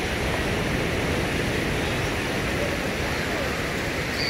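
Steady rushing noise of surf and wind at the beach, with wind rumbling on the microphone.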